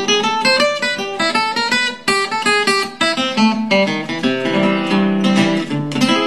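A 1947 Epiphone Blackstone archtop guitar with a carved spruce top, played with a pick: an instrumental passage of strummed chords and picked notes in quick succession.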